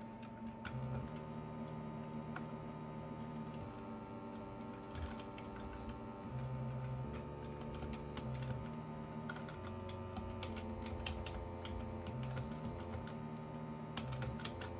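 Computer keyboard typing in irregular clicks, over a low synthesizer bass tone that steps between a few pitches, sounding as the notes are entered.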